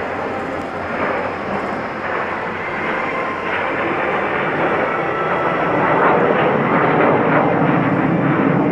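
Kawasaki T-4 jet trainers flying by, a jet roar that builds to its loudest about six seconds in.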